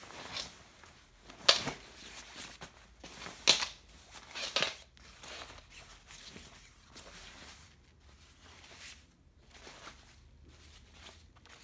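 Windstopper fabric of a Paul & Shark Yachting bomber jacket rustling as it is handled and turned over, with several sharp swishes in the first five seconds and softer rustling after.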